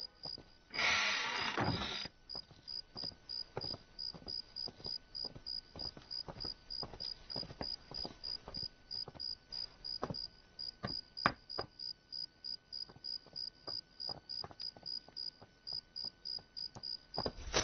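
Crickets chirping in a steady rhythm, about three to four chirps a second. About a second in there is a brief, louder rush of noise, and faint clicks come and go throughout.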